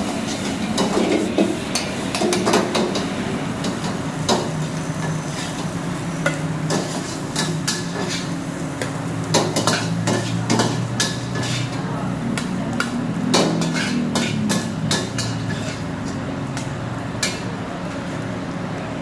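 Metal spatula clanking and scraping against a wok as fried rice is stir-fried: irregular sharp strikes, several a second at times, over a steady low hum.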